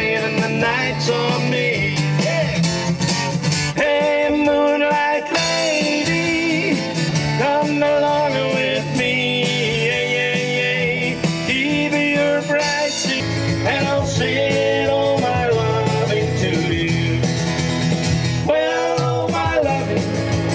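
Country-style song: a man singing to strummed acoustic guitar.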